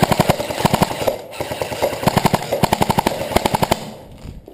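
Airsoft rifles firing a string of rapid full-auto bursts with short gaps between them; the firing stops near the end.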